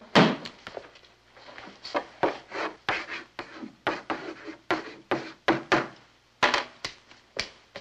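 Chalk writing on a blackboard: a run of short scraping and tapping strokes, a few a second, as a word is written letter by letter.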